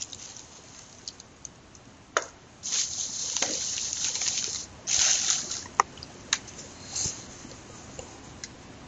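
Noises close on a headset microphone: a few short hissing rushes and several sharp clicks.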